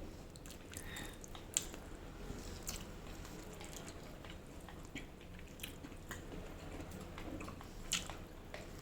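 A person chewing food close to the microphone, with small wet mouth clicks and smacks now and then.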